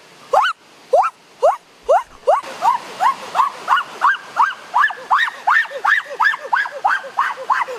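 An animal calling over and over: short, rising whistled calls, about three a second. From about five seconds in, a second, lower call that falls in pitch answers in between.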